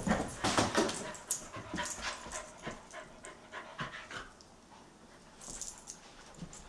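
A collie and a Belgian Tervuren puppy panting between bouts of play, a quick run of breaths that dies away about four seconds in, with a few more near the end.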